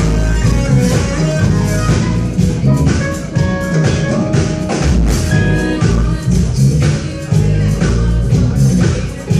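Loud band music with guitar and drums playing steadily through a sound check.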